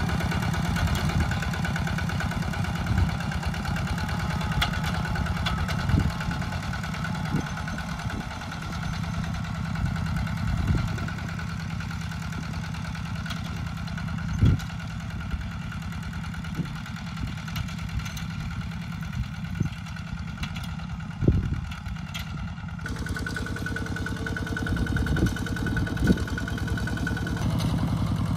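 Two-wheel walk-behind tractor's single-cylinder diesel engine chugging steadily under load as it pulls a plough through dry soil, with a few sharp knocks and clanks from the machine. The engine note shifts abruptly near the end.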